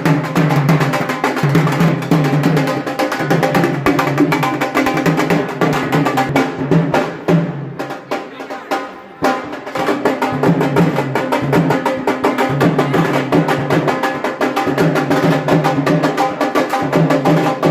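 Music with a prominent fast drum beat, dropping away briefly about eight seconds in before picking up again.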